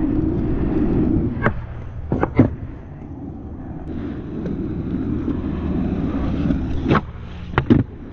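Skateboard wheels rolling over rough asphalt with a steady low rumble that eases off about a second and a half in and picks up again around four seconds in. A few sharp clicks and knocks sound between about one and a half and two and a half seconds in, and again near the end.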